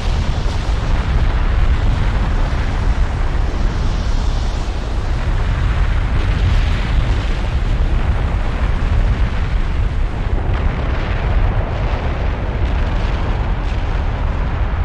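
Continuous loud rumbling roar, deep and heavy with a hiss on top, holding steady without breaks.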